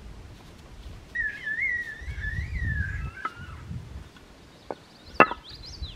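A wavering whistle lasting about two seconds, then a sharp knock about five seconds in as a flat stone is set down on another stone.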